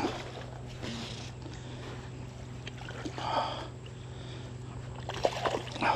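Creek water running steadily, with a short splash about three seconds in and a few quick sharp splashes near the end as a hooked smallmouth bass is played at the surface.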